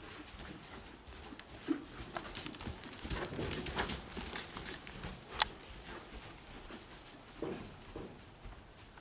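A horse's hooves clip-clopping in an irregular run of hoofbeats, busiest a few seconds in, with one sharper knock about halfway through.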